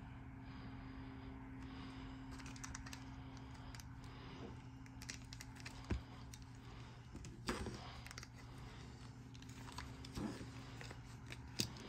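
Soft scratching and clicking as a back scratcher rubs over a cat's fur on a leather chair and the cat paws, claws and bites at it, with a few sharp knocks scattered through. A steady low hum runs underneath.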